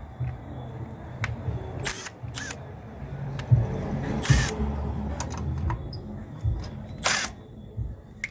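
Hand tools clicking and rasping on the sway-bar end link's lock nut, with several short scrapes of metal on metal, over a low rumble.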